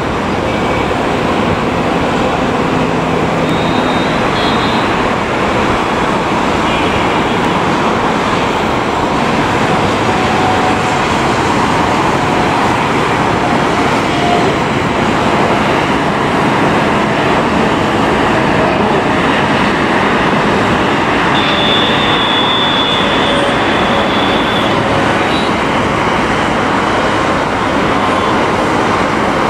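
Boeing 787's twin turbofan engines at takeoff thrust as it climbs out, a loud, steady jet noise that does not let up.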